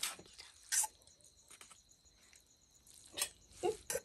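A few light clinks and scrapes of a metal fork and tongs against a steel saucepan and plates while noodles are served, separated by quiet stretches.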